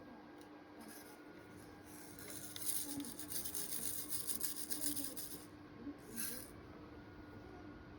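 Scratchy rubbing rustle, like something brushing over fabric, from about two seconds in to five and a half seconds, with a second short rustle just after six seconds, over a faint steady hum.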